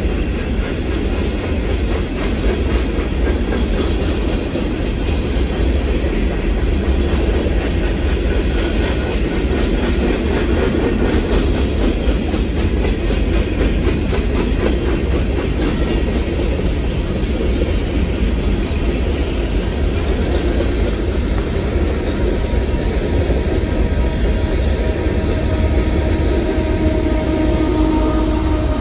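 Freight train cars rolling past, a steady low rumble with the wheels clicking over rail joints. A few steady tones come in near the end.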